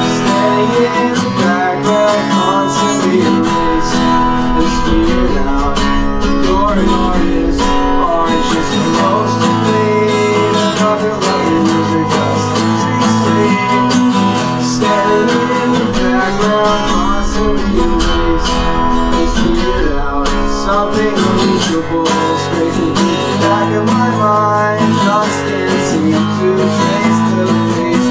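Acoustic guitar strummed, playing chords of a song at an even level.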